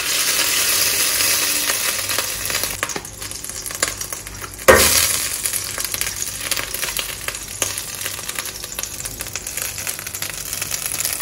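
Butter sizzling as it melts in a hot non-stick pot, loudest at first and slowly dying down, with scattered small crackles. A single sharp knock about halfway through.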